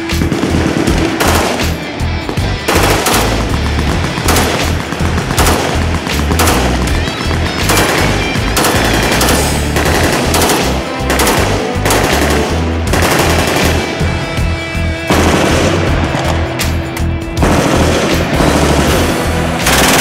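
Full-automatic rifle fire in long, rapid bursts with short pauses between them, with background music mixed in underneath.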